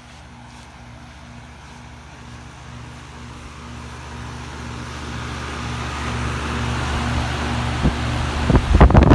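A 4-ton Lennox Elite central air conditioner's outdoor condensing unit running: a steady compressor hum under the rush of the condenser fan, growing louder as it is approached. Near the end, gusts of air buffet the microphone.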